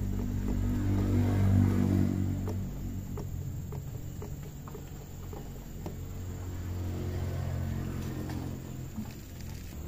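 An engine running steadily, loudest in the first two seconds or so, then quieter, and swelling a little again near the end, with scattered small metallic clicks from handling parts at the rear hub.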